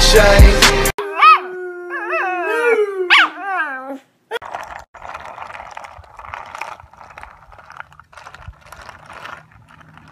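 A dog howling: one call about three seconds long whose pitch glides up and down, with two sharp upward swoops. Before it, about a second of hip-hop music cuts off. After it come quieter, hissy sounds in short patches.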